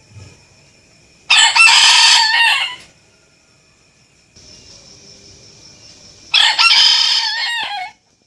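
Rooster crowing twice, each crow about a second and a half long and a few seconds apart, over a faint steady high-pitched whine.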